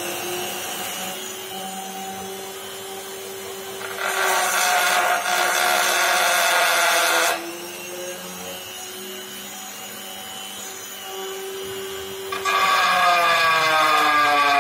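Dremel rotary tool with a thin stone grinding bit running with a steady whine, grinding into pine wood. It gets louder and rougher twice, from about four to seven seconds in and again from about twelve and a half seconds on, its pitch sagging as the bit bites into the wood.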